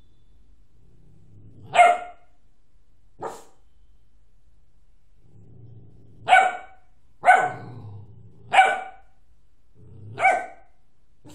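A Doberman barking six times at uneven intervals, the second bark short and weaker than the rest; a low growl leads into several of the barks.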